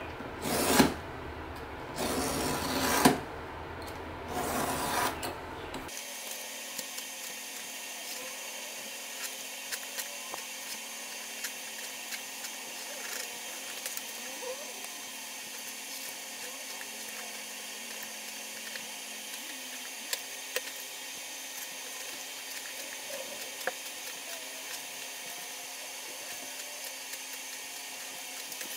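A small power tool run in three short bursts in the first few seconds, then a steady hiss with scattered faint light clicks.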